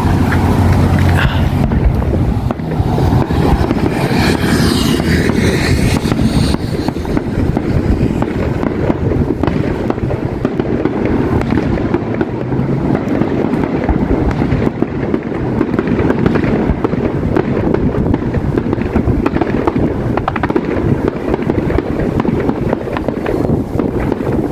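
Fireworks display going off in a dense, rapid barrage: many bangs and crackles close together with no let-up. Wind rumbles on the microphone underneath.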